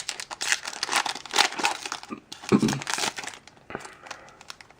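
A Magic: The Gathering booster pack's foil wrapper crinkling as it is torn open. The crackle is dense for about two seconds, then gives way to quieter, scattered rustles and clicks.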